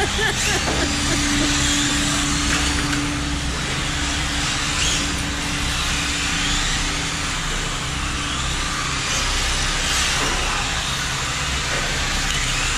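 Several Tamiya radio-controlled cars racing on a concrete floor, their electric motors whining up and down in pitch as they speed up and slow down through the corners.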